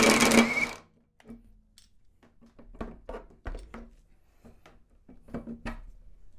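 Ingco 1,350 Nm 20V cordless impact wrench hammering in reverse in nut-buster mode on a nut whose threads are stripped. It stops abruptly within the first second. About a dozen light metal clicks and knocks follow as the wrench is set down and the socket and nut are handled.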